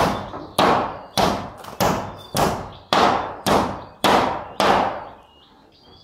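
Hammer driving nails into wooden wall boards: about ten sharp blows, roughly two a second, that stop about five seconds in.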